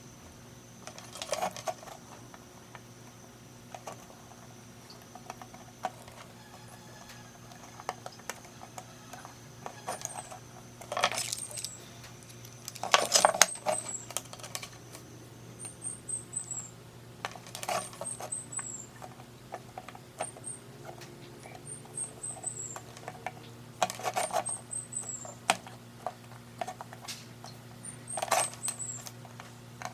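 Small metal parts clinking and knocking against a hard surface about six times, over a steady low hum. Short falling runs of high chirps, like a bird singing, recur through the background.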